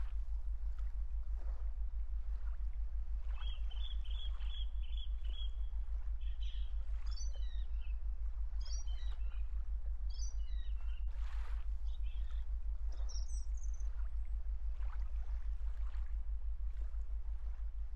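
Birds chirping over a steady low rumble: a quick run of repeated chirps, then several short falling trills spread through the rest.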